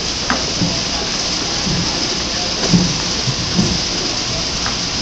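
Steady rushing noise, with soft, irregular low thumps as a gymnast's hands land on a pommel horse during a routine.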